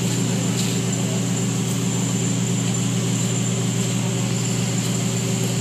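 Steady low mechanical drone of the arena's large ceiling ventilation fans, running unchanged with a faint high whine on top.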